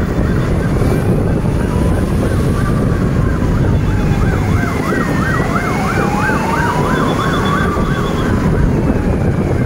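A vehicle siren warbling fast, about three times a second, with a slower wail falling and then rising beneath it, over a steady low rumble.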